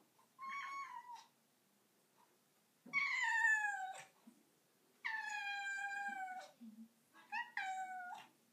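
Domestic cat meowing: a short meow, then two long drawn-out meows that fall in pitch, the first of them the loudest, then two quick meows close together near the end.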